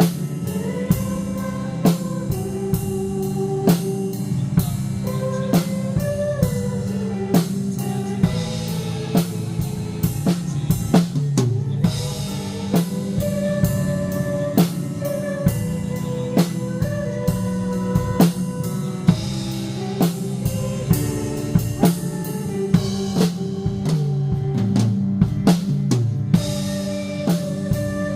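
Band music playing a praise song: a drum kit keeps a steady beat over bass and sustained melody instruments.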